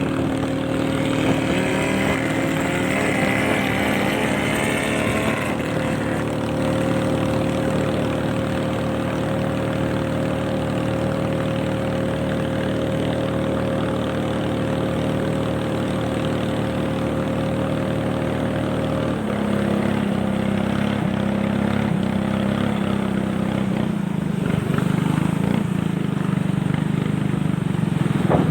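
Motorboat engine running under way with a steady note. About two-thirds of the way through, the engine note steps down to a lower pitch as the throttle is eased.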